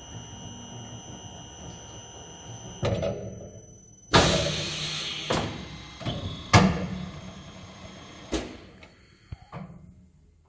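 ERP 900 compressor-wrecking machine running with a steady low hum, broken by several sudden clunks and bursts of hiss as its chuck loosens around the cut compressor. The loudest come about four seconds in and again about two and a half seconds later, and the hum dies away near the end.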